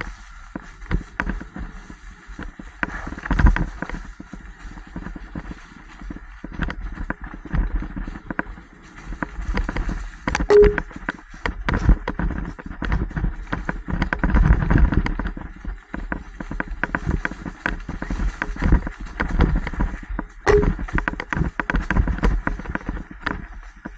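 Mountain bike rattling and clattering over a rough dirt trail: irregular knocks and clanks from the frame and chain over bumps, with rumbling tyre and ride noise that swells and fades. Two brief squeaks, about ten seconds apart.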